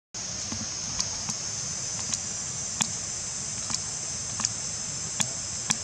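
Steady high-pitched drone of insects, with about ten sharp clicks scattered irregularly through it.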